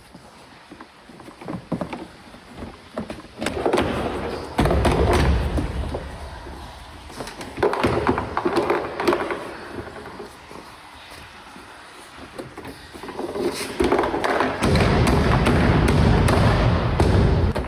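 Knocks, taps and scraping of hands working on a car door, pressing seals and the plastic trim panel back into place. The sound comes in three uneven stretches of rubbing and thumping, the last one heaviest.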